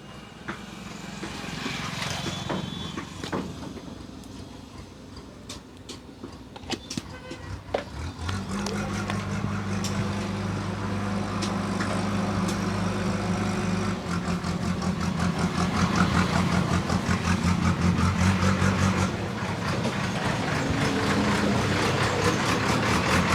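A motor starts about eight seconds in and runs with a steady low hum, which turns into a fast, even pulsing about halfway through and grows louder. Scattered light clicks come before it.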